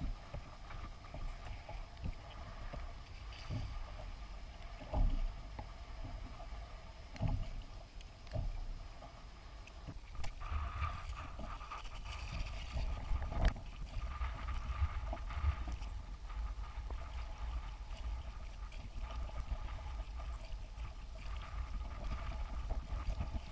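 A fishing kayak on open, choppy water: water slapping the hull, a low steady rumble of wind on the microphone, and several sharp knocks on the plastic hull.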